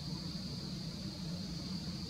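Steady background noise with no distinct events: a low hum together with a steady high-pitched whine.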